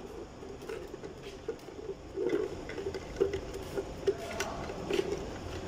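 Irregular small clicks, taps and rattles of hands working on a fuel pump module, handling its plastic bracket, wires and pump body.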